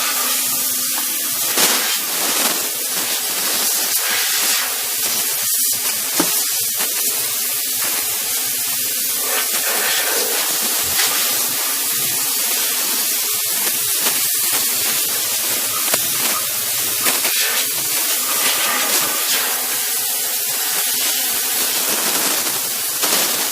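Cleanpower household steam cleaner blasting high-pressure steam from its nozzle: a loud, steady hiss.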